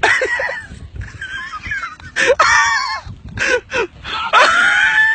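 A man screaming and wailing in fright, in short broken cries and one long, high held wail near the end.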